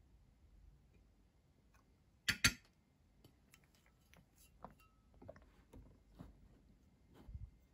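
Glass clinking and knocking: two sharp clinks about two seconds in, then a run of small light taps and clicks.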